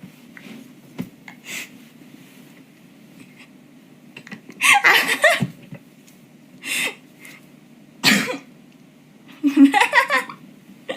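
A woman coughing in several short bursts, the longest about five seconds in and another near the end.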